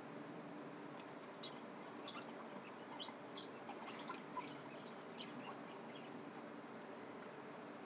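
Steady low hum with faint, short chirps scattered through the middle.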